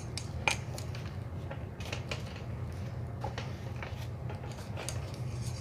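Light clicks and knocks of a ring light's stand being handled and its height adjusted, a few scattered taps with one sharper click about half a second in, over a steady low hum.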